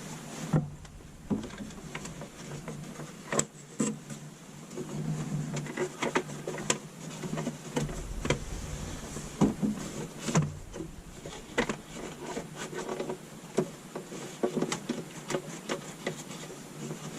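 Scattered clicks, knocks and rustles of hands pulling wire through a small wall cutout, over a steady low hum.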